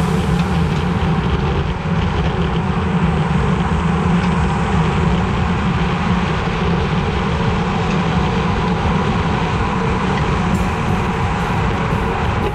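Steady rush of wind and tyre noise on a camera mounted on a road bike riding at speed.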